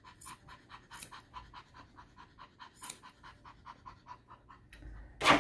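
Small, older Poodle-Bichon mix dog panting rapidly and steadily, about four pants a second, with a few sharp snips of grooming scissors near its face. A brief louder noise comes right at the end.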